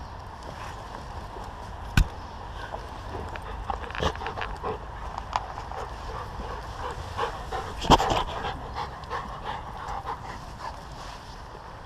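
A pack of dogs panting and sniffing close up as they crowd around a dig, with scattered short snuffles and clicks. Two sharp knocks stand out, about two seconds in and again near eight seconds, as the dogs jostle against the microphone.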